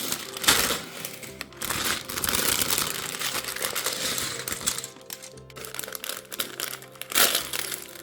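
Plastic bags of LEGO pieces crinkling as they are handled, over background music.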